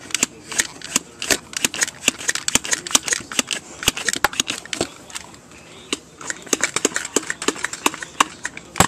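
Plastic toy blaster being handled right at the microphone: rapid, irregular clicks and rattles of plastic.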